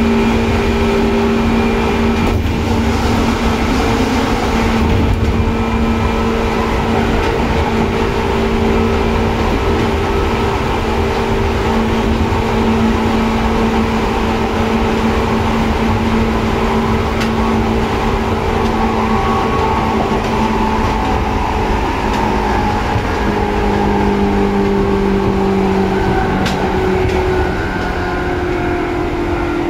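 Seibu 2000 series electric train's traction motors whining under running noise, several steady tones held together. About two-thirds of the way through, the pitch starts to fall slowly as the train slows.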